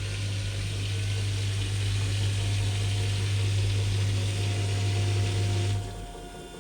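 Kuppersbusch WT 6508.1 built-in washer-dryer running with water rushing through it over a steady low hum, which cuts off sharply near the end.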